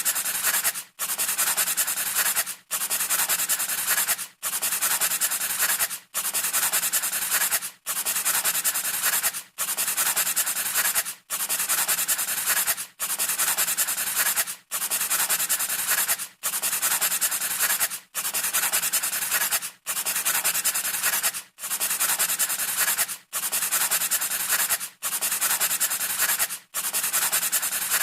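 Pencil scratching across paper in a steady scribble, repeating as a loop with a brief gap about every second and a half.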